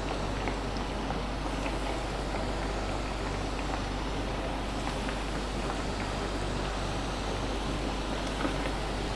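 Hot oil sizzling steadily in a frying pan as raw donut dough rings deep-fry, over a faint low hum.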